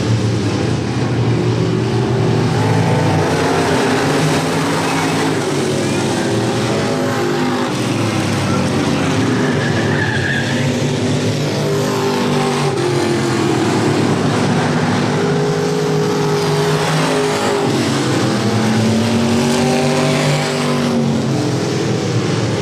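Several dirt-track street stock race cars running laps together, their engines revving up and easing off again and again through the turns and down the straights.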